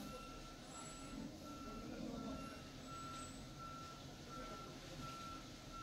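A vehicle's reversing alarm beeping steadily, about four beeps every three seconds, over a low engine rumble.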